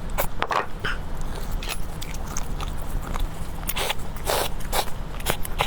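A person eating: irregular chewing and biting sounds, each a short burst, over a steady low hum.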